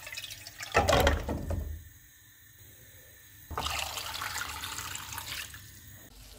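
Peeled potatoes tipped from a glass bowl land with a clunk in an empty nonstick pot about a second in. From about three and a half seconds in, water is poured over them in a steady splashing stream lasting about two seconds.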